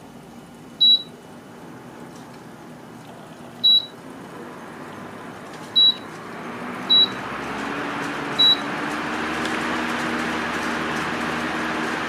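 Yamazen DC-motor electric fan beeping five times as it takes infrared speed-up commands, each a short high beep, spaced one to three seconds apart. Its airflow rush grows steadily louder from about six seconds in as the fan speed climbs from setting 2 to 7.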